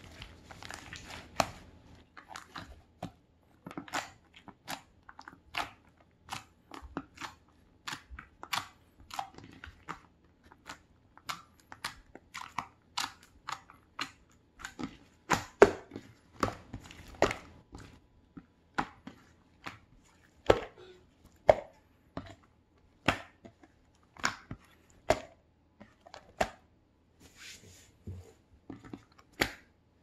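Slime being squeezed and poked by hand, giving an irregular run of sharp wet clicks and pops, roughly one or two a second, louder in the second half.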